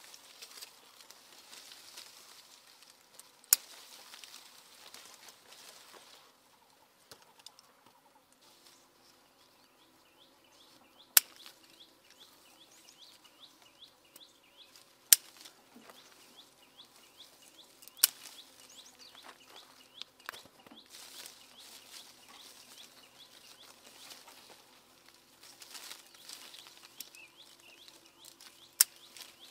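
Scissors snipping through the stems of small green citrus fruit as they are picked from the tree: about five sharp snips, several seconds apart, over leaves rustling and birds chirping.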